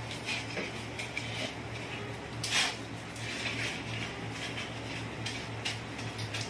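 Fingers pressing a ball of mashed potato into crushed dry Maggi noodles: faint, scattered crunching and rustling of the noodle crumbs, with one louder rustle about two and a half seconds in, over a steady low hum.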